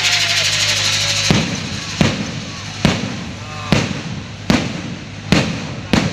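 Fireworks going off: a dense hissing crackle for about the first second, then a run of sharp bangs, about one every 0.8 seconds, each trailing off briefly.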